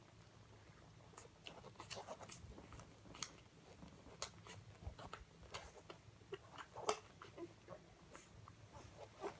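Siberian husky puppies suckling at their mother's teats: faint, irregular wet clicks and smacks, with one louder smack about seven seconds in.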